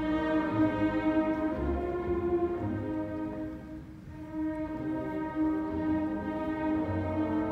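School orchestra playing, violins and cellos to the fore, in sustained chords. It softens briefly about halfway through, then swells again.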